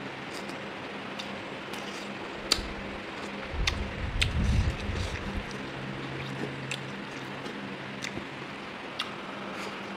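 Close-up eating sounds of a person eating chicken with gravy: wet chewing and smacking with scattered sharp clicks, and a low rumble from about three and a half to five and a half seconds in. A faint steady hum lies underneath.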